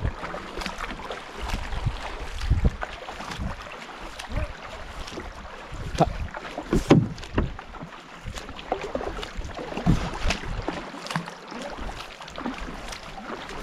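Canoe paddles stroking and splashing through river water, a run of short irregular splashes, with wind rumbling on the microphone.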